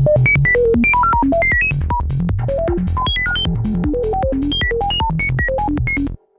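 Software modular synth patch (Cherry Audio Voltage Modular Nucleus) playing a fast stream of short sine-wave blips, about eight a second. Each blip jumps to a new random pitch, set by a clocked sample-and-hold, and starts with a click. It cuts off abruptly near the end.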